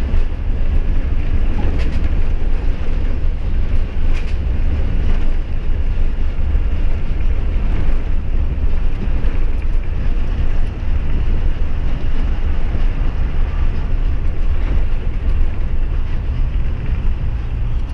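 Truck cab noise while driving on a dirt road: a steady low rumble of engine and road, with wind buffeting the microphone and a couple of light knocks early on.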